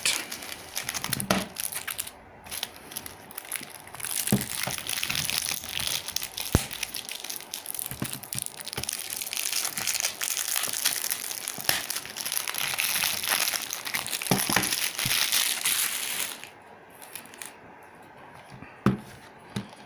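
Plastic shrink wrap being torn and crumpled off a Blu-ray case: dense crinkling and crackling for about sixteen seconds, then it stops, with a couple of light clicks near the end.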